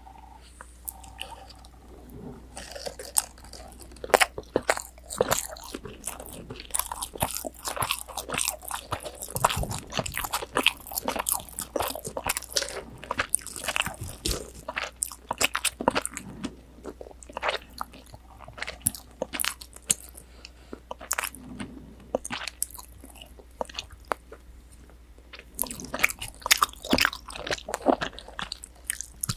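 Close-miked biting and chewing of a crunchy deep-fried pork cutlet (tonkatsu), its breaded crust crackling with many sharp crunches. The crunching starts about two seconds in and goes on steadily.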